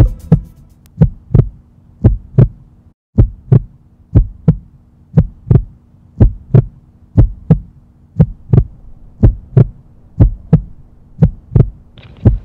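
Heartbeat sound effect: paired lub-dub thumps about once a second, steady and even, over a faint steady hum.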